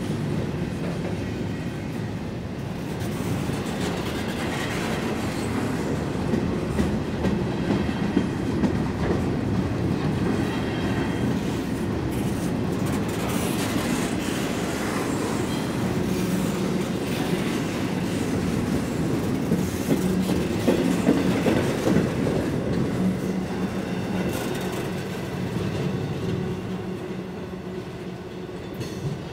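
Double-stack intermodal well cars of a CSX freight train rolling past close by: a steady heavy rumble and clatter of steel wheels on the rails, with faint high wheel squeal at times. The sound drops away near the end as the last car passes.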